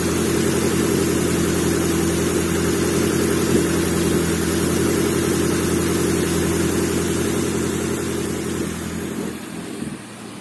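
Nissan SR20 2.0-litre inline-four engine running steadily on a bare test stand, on its original wiring harness. It fades away near the end.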